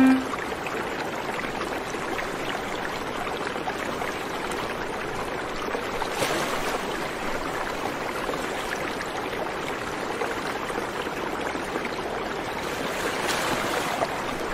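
A steady rushing noise with no tune or voice, swelling slightly about six seconds in and again near the end.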